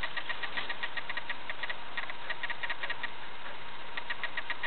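Rapid, uneven runs of small dry clicks, several a second, from a cockatiel, with a faint steady hum underneath.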